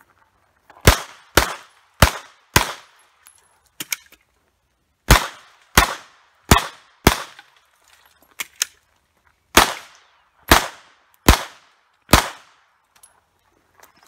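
Glock 17 Gen 4 9mm pistol firing twelve shots in three strings of four, about half a second to a second apart, with pauses of about two and a half seconds between strings. A few faint clicks fall in the pauses.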